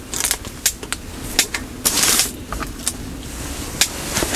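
Ice-fishing tackle being handled: a run of sharp, irregular clicks and taps, with a short rustle about two seconds in.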